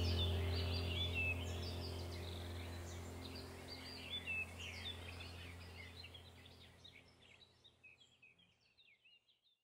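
Birds chirping over a low steady hum. Everything fades out gradually to silence near the end.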